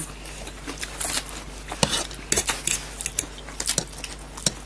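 Metal forks clicking and scraping on plates in short, irregular taps while chowmein noodles are twirled and slurped.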